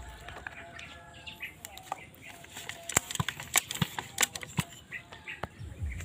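Sharp clicks and knocks from hands handling a homemade spear gun built from black pipe and a metal rod, bunched together about halfway through, with faint bird chirps behind.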